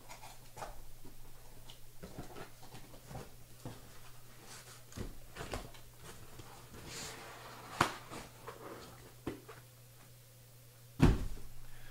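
Scattered light clicks, taps and rustles of trading cards and plastic card holders being handled on a table, over a steady low hum. A sharper click comes about two-thirds of the way through and a louder thump near the end.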